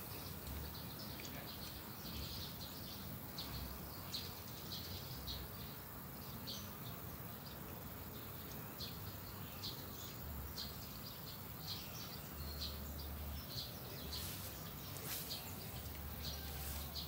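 Quiet outdoor ambience: many short, high-pitched chirps repeat irregularly over a faint steady hiss, with occasional low rumbles.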